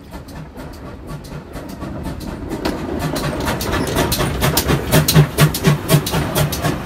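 Train wheels clattering over rail joints in a steady rhythm of about four clicks a second, growing louder as another train passes close alongside on the adjacent track.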